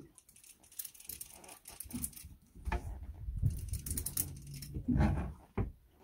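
Heavy-duty saltwater fishing reel cranked in bursts while a big halibut is pumped up on a bent rod, giving a rattling, clicking whir, mixed with low rumbling knocks from the rod and handling.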